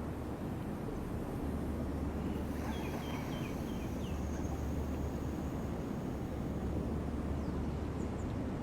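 Steady outdoor background noise: a low rumble with an even hiss over it, and a few short high chirps from a bird about three seconds in.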